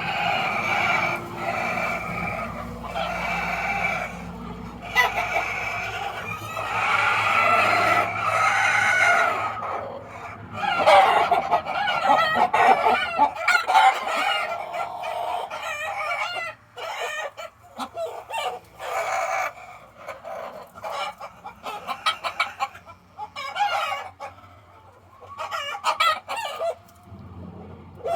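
Several roosters crowing in chorus, one after another and over each other. Long crows fill the first half, then shorter, broken calls come toward the end.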